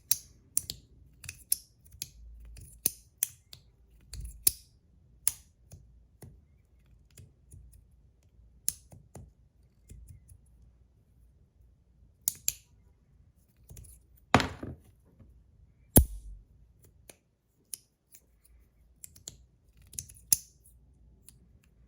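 Magnetic fidget slider worked back and forth by hand, its plates snapping into place under strong magnets: sharp, irregular clicks, with two louder snaps about 14 and 16 seconds in.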